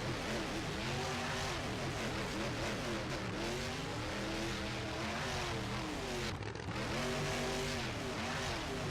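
Several motor engines revving up and down over and over, their pitches rising and falling and overlapping, over a constant noisy rush.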